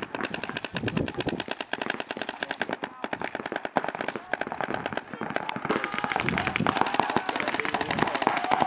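Paintball markers firing in rapid strings, many shots a second with little pause.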